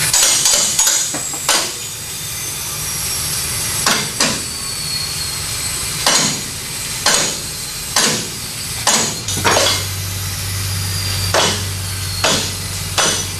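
Pneumatic impact wrench spinning off lug nuts in about a dozen short, sharp bursts. A steady low hum comes in about nine seconds in.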